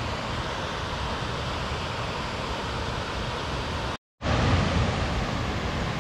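Steady rushing of a waterfall's falling water, cut off completely for a fraction of a second about four seconds in and then coming back slightly louder.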